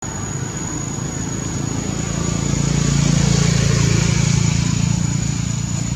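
A motor vehicle engine going by, its low hum swelling to a peak in the middle and easing off, over a steady thin high whine.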